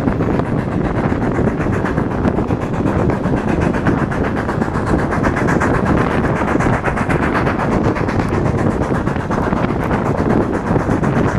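Steam-hauled passenger train running steadily, heard from an open carriage window, with a steady rush of wind over the microphone.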